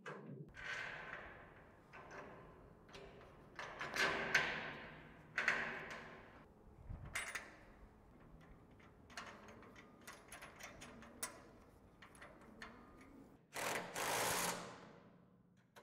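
Scattered metal clinks and knocks as carriage bolts and a washer plate are fitted through a steel container door. Near the end a cordless DeWalt 20V XR impact driver with a socket runs for about a second and a half, hammering a nut tight onto a carriage bolt.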